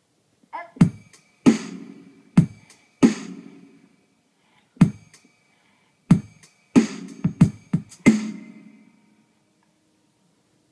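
A toddler slapping piano keys with his flat hand: about a dozen loud, clashing clusters of notes, each ringing out, with a quick run of strikes around seven seconds in. The notes die away by about nine seconds.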